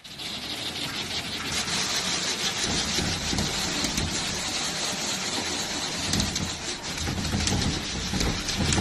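Steady rush of a water jet spraying against a glass door, heard from the inside of the glass.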